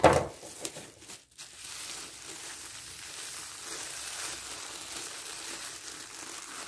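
Granulated sugar pouring from a plastic bag into a bowl of ground walnuts: a steady, even hiss of running grains, after a brief crinkle of the bag at the start.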